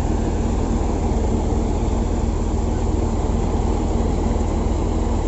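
Surya wheat thresher running at a steady pace while being fed wheat bundles, driven off a Mahindra 575 DI XP four-cylinder tractor: a dense, unbroken mechanical noise with a low engine hum underneath.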